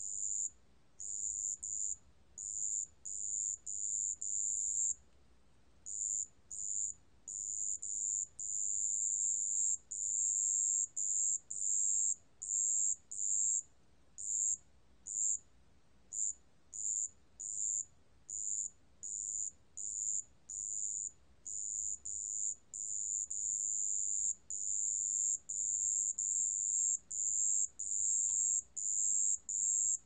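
Wetland bell cricket (습지방울벌레), a small black ground cricket, singing at 27 °C: high-pitched trills in bouts of uneven length, some short bursts and some a second or more long, with brief pauses between them.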